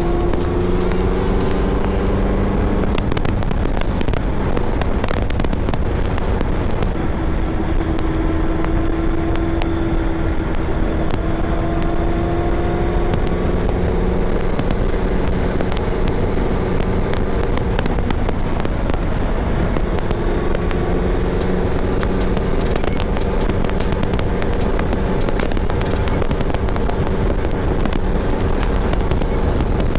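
Honda CBR650F's inline-four engine running under way, its note climbing slowly in pitch through the gears, over heavy wind rush on the microphone.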